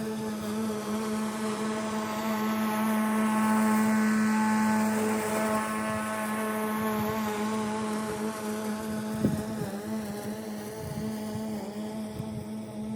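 Lawn mower running steadily with an even motor tone, growing a little louder toward the middle as it moves past, with a single short knock about nine seconds in.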